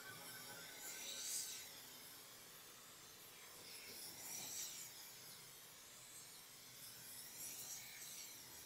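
Near silence with three faint, hissy swishes about three seconds apart.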